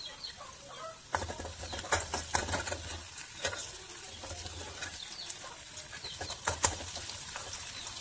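Chopped shallots sizzling in hot oil in a metal kadai, with many sharp crackles and spatters, thickest from about a second in and loudest around six and a half seconds. A metal ladle stirs them partway through.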